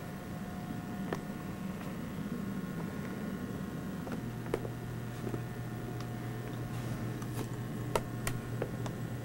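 Light clicks and taps from a handheld camcorder being handled, over a steady low hum that drops a little lower about four seconds in.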